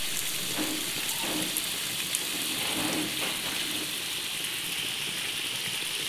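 Heavy rain falling steadily on open ground, an even hiss with no breaks.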